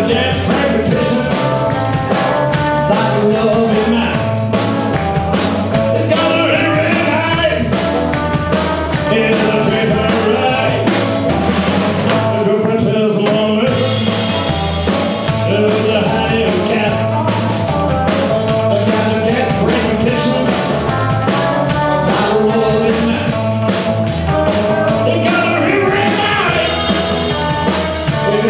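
Rock and roll band playing live: electric guitars, bass guitar and a drum kit, with a man singing into the microphone.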